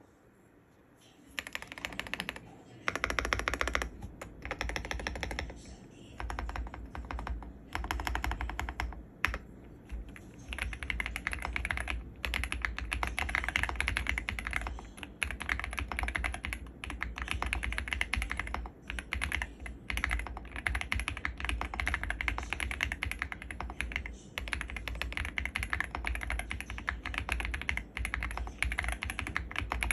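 Fast typing on an Ajazz AKS068 Pro mechanical keyboard with sea salt linear switches, stock keycaps, a three-layer tape mod and a polyfill mod. Rapid keystrokes come in runs with brief pauses, starting about a second and a half in.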